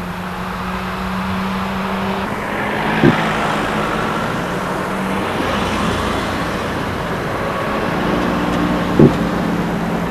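Road traffic: a steady engine hum and a vehicle going past with a swelling rush of noise. Two short knocks come about three seconds and nine seconds in.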